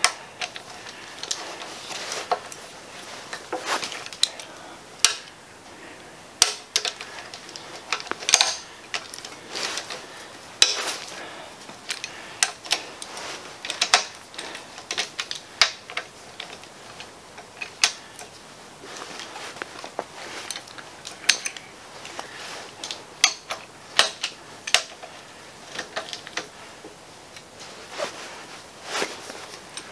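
Hand wrench loosening the cast-iron cylinder head bolts on a Ford Model T engine: irregular metallic clicks and clinks as the wrench works each bolt and is moved from bolt to bolt.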